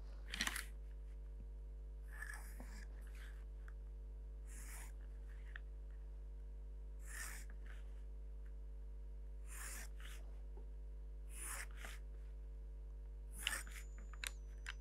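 Faint pencil strokes on drawing paper as lines are drawn along a set square, one short stroke about every two seconds, over a low steady hum.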